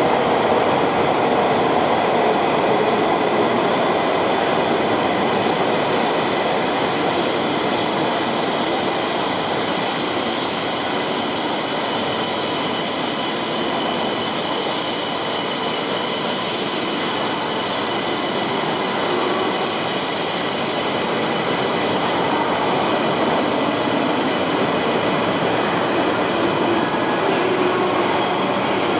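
Shinkansen train rolling slowly along the platform, a steady loud rumble of wheels and running gear with faint high squealing tones from the wheels.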